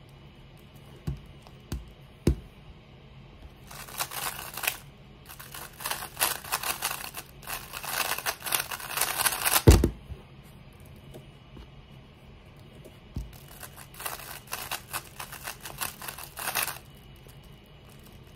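Plastic 3x3 speedcube turned at speed: a dense run of fast clicking layer turns lasting about six seconds that ends in a thump as the cube is put down on the mat. A few seconds later comes another burst of rapid turning.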